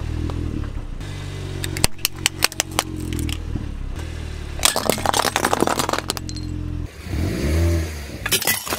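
Car engine running at low speed as a tyre rolls onto small toys and objects, crushing them: a quick run of sharp cracks a couple of seconds in and a longer burst of cracking and crunching about halfway. Near the end the engine revs up and back down and more cracks begin.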